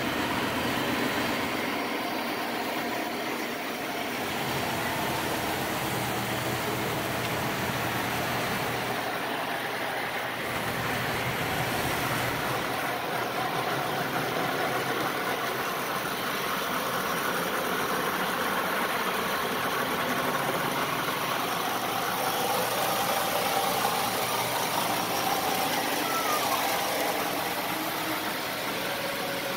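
Lionel O-gauge electric model trains running on three-rail track, including a postwar Santa Fe F-3 diesel pulling aluminum passenger cars. The motors and the wheels on the rails make a steady hum and rumble that does not change much.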